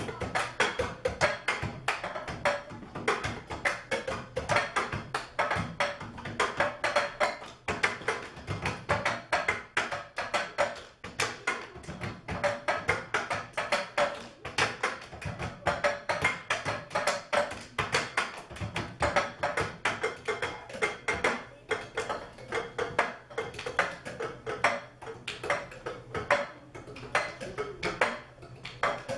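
Percussion ensemble playing a rhythmic piece on cups: a fast, continuous pattern of interlocking taps and knocks, with short ringing cup tones and low thuds.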